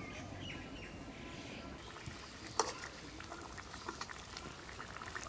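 Fish curry bubbling in an iron kadai over a wood fire. From about two seconds in there are scattered sharp clicks, with one louder knock about halfway through.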